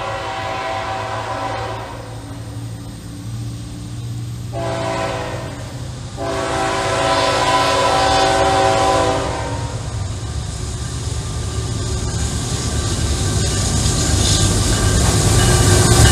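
Horn of a Norfolk Southern GE ET44AC freight locomotive, a chord of several tones. It sounds three times: one blast ending about two seconds in, a shorter one, then a longer one ending about halfway through. The locomotive rumble then grows steadily louder as the lead unit comes up and passes close by at the end.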